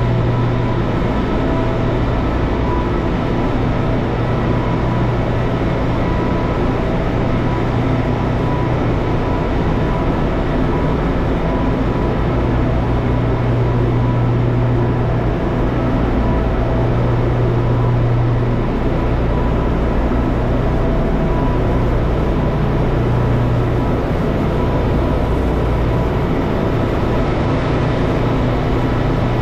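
Ship's auxiliary diesel generator engines running, a loud steady engine-room drone with a strong deep hum and a few faint steady tones above it.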